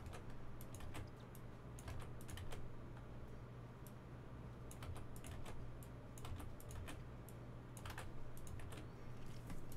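Typing on a computer keyboard in scattered, irregular keystrokes, over a low steady hum.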